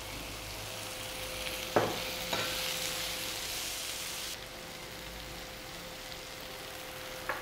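Chopped tomatoes and onions sizzling in hot oil in a non-stick frying pan while a spatula stirs them. Two knocks come about two seconds in. The sizzle is strongest for the next couple of seconds, then drops back to a steady lower hiss just past the halfway mark.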